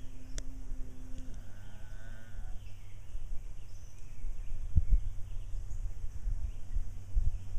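Young llama humming in a few short, wavering calls, over a steady low rumble with a couple of dull thumps in the second half.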